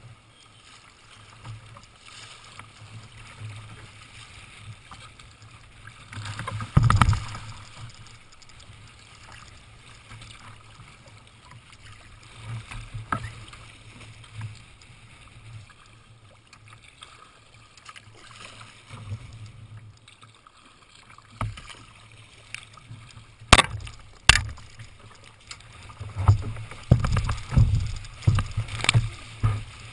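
Water splashing and slapping against a sea kayak's hull as it is paddled through choppy water. Two sharp knocks come a little past the middle, and the splashing grows busier and louder near the end.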